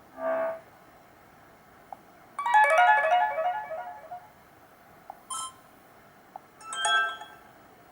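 Built-in tones of a Black Fox B5 phone played one after another: a short chime, a quick falling run of notes lasting under two seconds, then two more short chimes. A faint click comes just before each tone.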